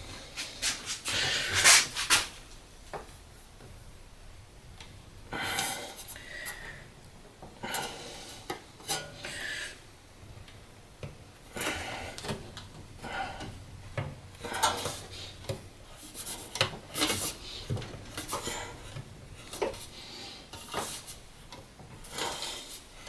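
Thin aluminum sheet being bent up by hand over a clamped table edge: irregular clinks, scrapes and rubbing of metal, loudest about two seconds in.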